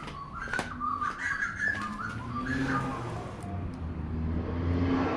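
A person whistling a few short notes, then a low rumble that builds towards the end, like a passing vehicle.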